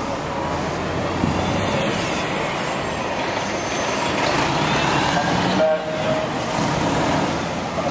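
Loud steady rumble of city noise, with faint high squeals gliding up and down and a short horn toot about three-quarters of the way through.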